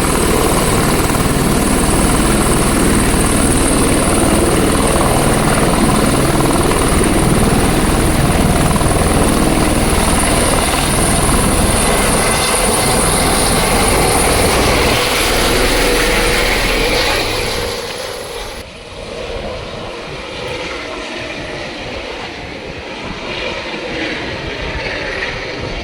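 Helicopter turbine and rotor noise, loud and steady with a high whine over it. About two-thirds of the way through it drops noticeably quieter and duller.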